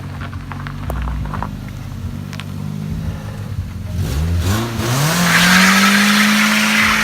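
Ford Focus engine running, then revved hard about four seconds in, its pitch climbing quickly and holding high as the car pulls away, with a loud rushing hiss over it.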